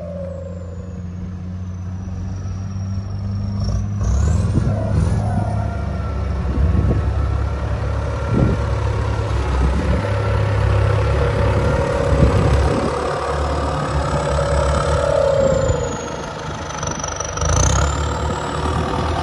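Ford 7740 tractor's turbo diesel running hard under load while it works the soil, the engine note rising about four seconds in, with scattered clattering from the working gear.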